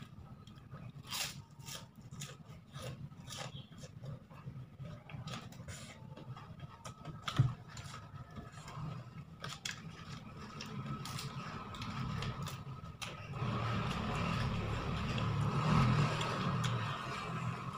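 Eating by hand: fingers scraping and gathering rice on a paper food wrapping, with the small clicks of chewing and a sharp click about seven seconds in. About two thirds of the way through, a louder steady noise swells up and eases off near the end.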